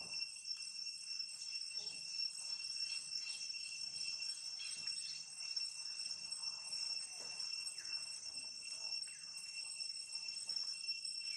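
Steady high-pitched insect chorus, with short intermittent rustles and crinkles of a plastic food bag as a young long-tailed macaque picks food out of it.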